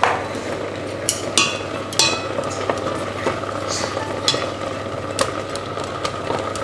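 Carrot and lotus root simmering in seasoned dashi in a stainless steel saucepan, bubbling steadily, while wooden chopsticks stir them and knock against the pot several times.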